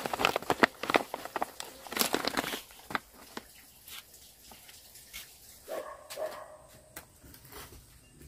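Plastic pouch of dried tea leaves crinkling and rustling as it is handled, in quick crackles over the first three seconds.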